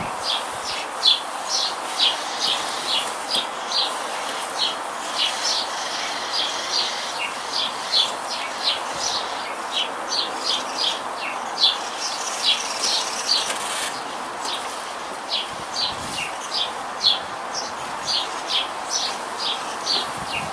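Small birds chirping steadily, about two short high chirps a second, over a constant background hiss.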